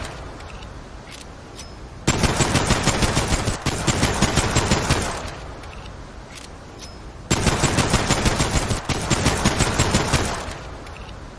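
Service pistol firing in two long strings of rapid gunshots, about seven shots a second, each string lasting about three seconds and dying away in an echoing tail. A few faint clicks sit in the pauses between strings.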